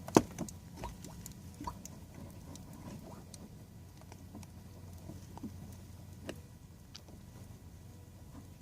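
Engine oil dripping and trickling from the oil pan's drain hole into a catch pan, as irregular light taps, with one sharper click just after the start.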